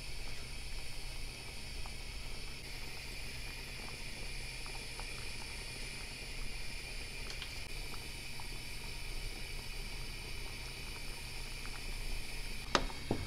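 Pot of lamb, cowpea and tarhana stew boiling on the stove: steady bubbling with small scattered pops, and one sharp click near the end.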